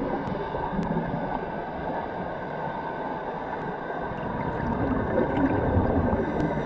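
Underwater sound: a muffled, churning rumble and gurgle of water, with a faint steady hum.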